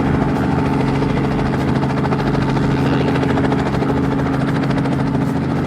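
Helicopter engine and rotor running steadily on the ground before takeoff: a constant hum with a fast, even rotor beat.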